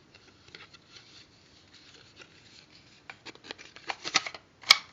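Handling noises: light rustling and small ticks, then a run of sharper clicks from about three seconds in, and one loud sharp click near the end.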